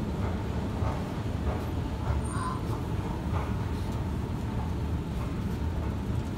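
Steady low rumble of a glass passenger lift travelling in its shaft, with a few faint short sounds over it.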